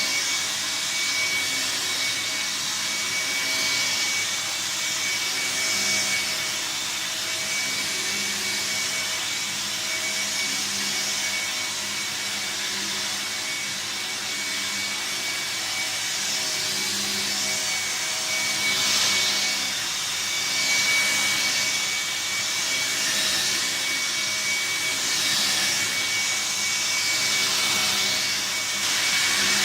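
VAX T1300 upright vacuum cleaner running steadily with a constant high whine. In the second half a high hiss swells and fades every second or two.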